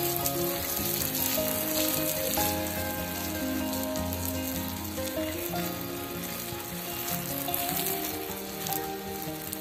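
Steady hiss of a fine water spray falling on lawn grass. A background music melody plays underneath.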